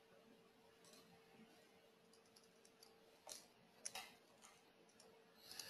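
Faint computer keyboard key presses and mouse clicks, scattered in small groups, with a few louder clicks about three to four and a half seconds in, over a faint steady hum.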